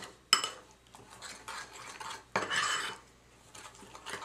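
A utensil stirring a thick batter of ground flaxseed, egg and cream in a ceramic bowl, scraping and knocking against the bowl in irregular strokes, with a sharp knock about a third of a second in and a longer, louder scrape about two and a half seconds in.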